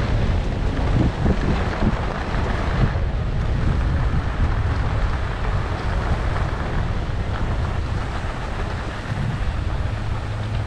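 Wind buffeting the microphone of a camera on a downhill skier, mixed with the steady hiss and scrape of skis gliding over groomed snow.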